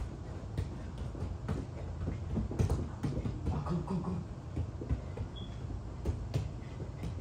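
Soccer ball being dribbled and kicked on a concrete floor in a bare basement: irregular thuds of ball touches and knocks off the concrete wall, with sneaker scuffs and squeaks.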